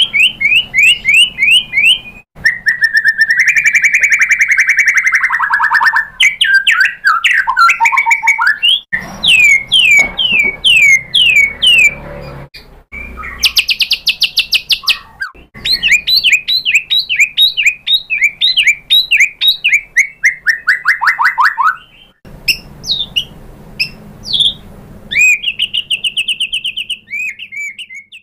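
White-rumped shama (murai batu) singing in fast, varied phrases: rapid runs of repeated chirps, phrases that slide down in pitch, and high buzzy notes, with abrupt breaks between phrases.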